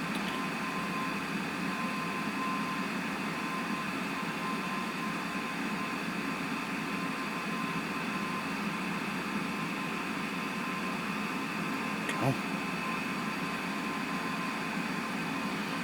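Steady mechanical hum and hiss with a faint constant high tone, the kind of noise a fan or air-conditioning unit makes; a single light knock about twelve seconds in.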